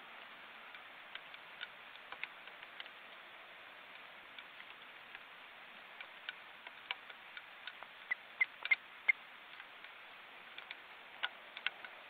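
Steady faint hiss from an outdoor nest webcam's microphone, with scattered irregular ticks and clicks. A cluster of sharper clicks comes about two-thirds of the way through.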